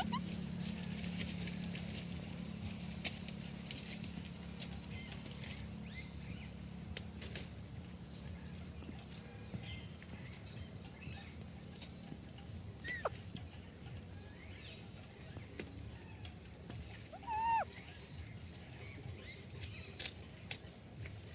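Ringneck parrot calling only now and then. There is a sharp, quick chirp a little past halfway and a louder short squawk a few seconds later, with a few faint chirps in between. Scattered clicks and a steady high-pitched whine sit under it.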